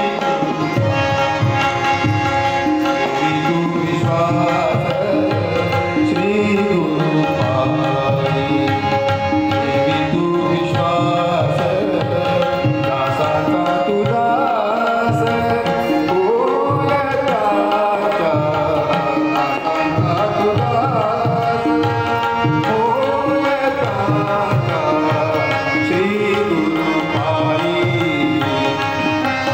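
Tabla and harmonium accompanying a male singer in a devotional bhajan: the harmonium's sustained reed tones sit under the tabla strokes, and the voice's melody bends in and out at times.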